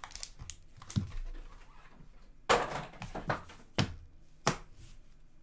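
A hockey card box being handled and opened with gloved hands: a few short knocks and clicks against the table and box, the loudest about halfway through.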